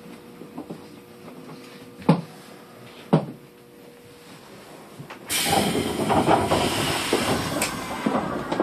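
Inside a stopped Nishitetsu commuter train: two sharp knocks about a second apart, then, about five seconds in, the doors open with a sudden hiss and a rush of louder platform noise that carries on.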